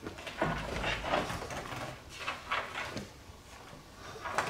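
A string of wooden knocks and scrapes as a 2x lumber roof truss is tilted upright by hand.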